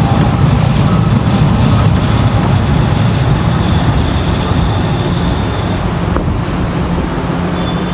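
Light-rail train cars rumbling along the track as the train pulls into the station platform, the rumble easing gradually as it slows. A faint high-pitched whine sounds partway through and again briefly near the end.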